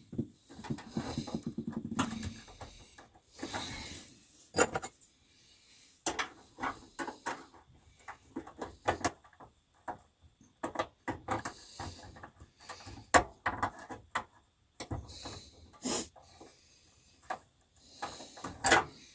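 Irregular clicks, taps and knocks of hand tools and small metal parts being handled during a heater installation. A short low buzzing sound comes about a second in.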